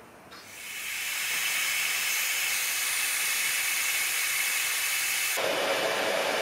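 Electric heat gun blowing hot air onto heat-shrink tubing over a soldered wire splice, sealing the joint. The steady hiss of air starts about half a second in, then turns lower and less hissy about five seconds in.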